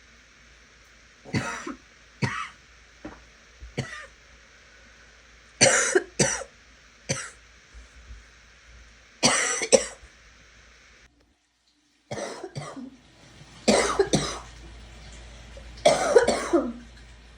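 A person coughing in a series of short raspy coughs, some in quick pairs, with a few longer, harsher coughs near the middle and end.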